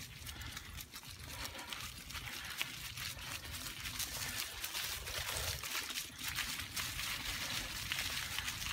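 Bicycle tyres rolling over a leaf-strewn gravel forest track: a steady crackle of many small clicks over a low rumble.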